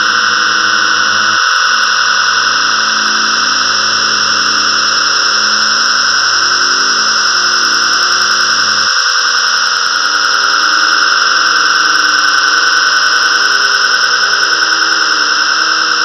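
Synthesized storm-ambience pad from GarageBand's 'Thunderous Ambience' sound: a steady, loud wash of hissing, rain-like noise over low held synth chords. The chords change about a second and a half in, and again about nine seconds in, where the lowest notes drop out.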